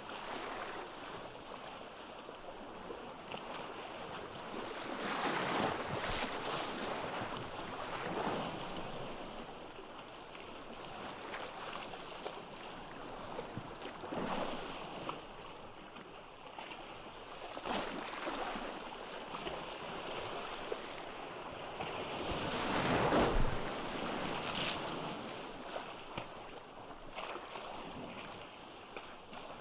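Ocean surf breaking on a beach: a steady wash of water with a fresh wave crashing in every few seconds, the biggest about three-quarters of the way through.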